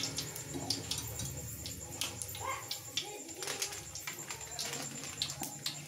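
Cumin seeds crackling in hot oil in an aluminium pot, with irregular sharp pops and spits. A faint low cooing sound is heard in the middle.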